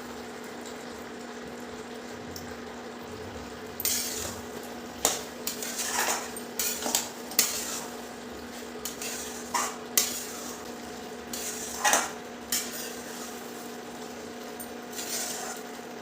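A spoon stirring and scraping a thick ghee-and-jaggery mixture in a thin-bottomed kadhai, over a low frying sizzle and a steady hum. After a quieter start, irregular scrapes and clinks against the pan begin about four seconds in. The stirring is constant to keep the jaggery from catching and burning.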